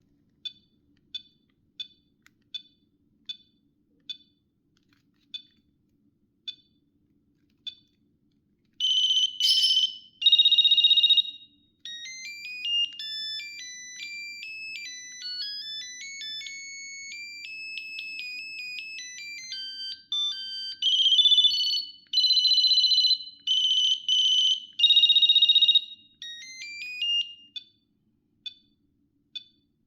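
Ericsson GH388 GSM mobile phone playing its built-in monophonic ringtones. It opens with a row of short single beeps, then plays high electronic melodies one note at a time, with stretches of loud steady ringing tones. It ends with a few more short beeps.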